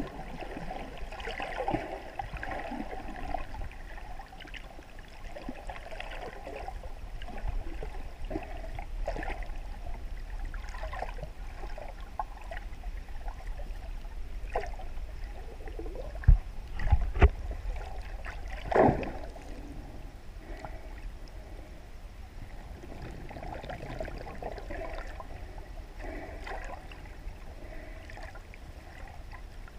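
Muffled underwater water noise picked up through a GoPro Hero 3+ Black's waterproof housing: steady sloshing and gurgling with faint crackle. A cluster of about four sharp knocks comes a little past the middle.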